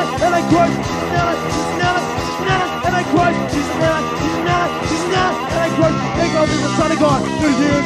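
Punk rock band playing loud guitar and drums.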